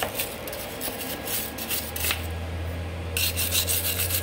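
Hand steel wire brush scrubbing a fresh weld on a cast-iron engine block, rapid back-and-forth scraping strokes that pause for about a second just after the middle, then resume. A low steady hum runs underneath.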